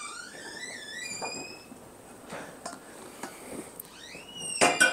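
Enamel kettle handled and set down on a gas stove's grate, with a few sharp metal clanks near the end. Earlier, soft clicks and a short, faint, rising squeak.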